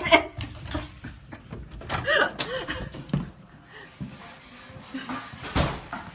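A plastic pet-door flap knocking in its frame as it swings shut, followed by a few more faint knocks.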